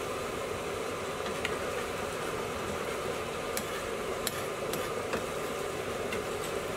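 Curry sizzling in a metal pan over a gas burner, a steady hiss, while a ladle stirs and scrapes through it, tapping the pan with a handful of sharp clicks.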